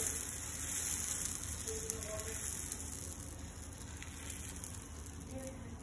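Dosa batter sizzling on a hot cast-iron pan while a steel ladle spreads it in circles: a steady, crackly high hiss that slowly fades.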